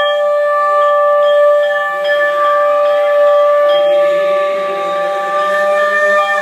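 Conch shells blown in one long, steady, loud held note, sounded to open the morning meditation.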